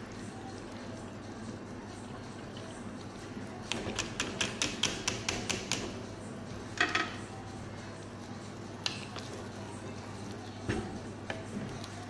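Light clicks and knocks of utensils against a metal cooking pot as rice is worked in: a quick run of about a dozen clicks, then a louder clatter and a few scattered knocks, over a steady low hum.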